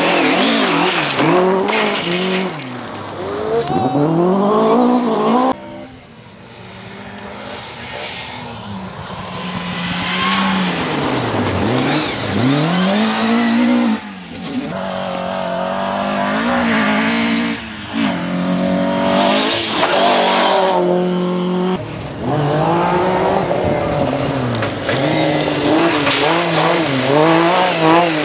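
Rally car engines at full throttle on a gravel stage, in several short clips. The revs climb and drop sharply again and again at each gear change. In the first clip a Ford Escort rally car charges through a water splash.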